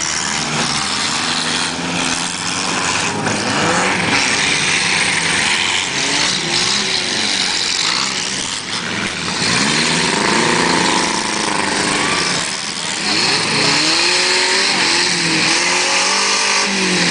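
Several four-cylinder demolition derby cars' engines revving up and down over and over, over steady crowd noise, with a few sharp knocks.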